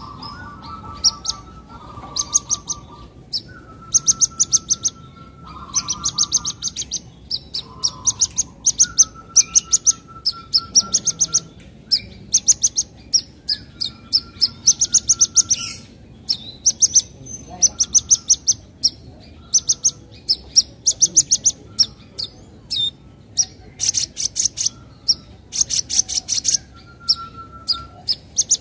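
Little spiderhunter singing: rapid trains of sharp, high chattering notes, each train lasting about a second and repeated with short gaps, interleaved with lower, level whistled notes.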